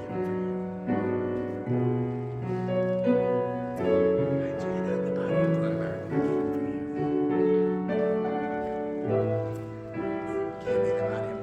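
Slow instrumental keyboard music, held chords over a low bass line, changing every second or two.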